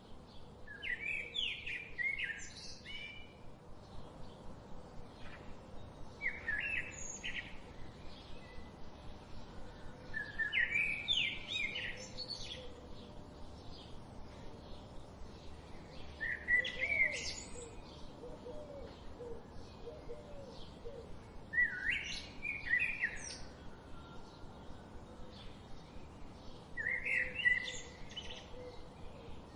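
Birdsong: a bird repeats a short warbled phrase about every five seconds, six times, over a steady background of faint, rapid chirping.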